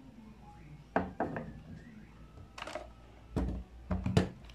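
Sharp plastic knocks and clicks from handling a Huina 1592 RC excavator's body as its battery pack is set into the battery compartment and the body cover is closed. The knocks come about a second in, again near the middle, and in a closer cluster near the end, which is the loudest part.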